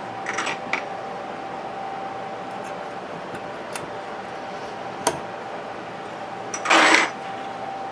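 Metal spring clips being pushed and pressed down onto a car amplifier's transistors and heatsink: a few small clicks, a sharp click about five seconds in, and a louder scrape of a clip sliding into place near the end, over a faint steady tone.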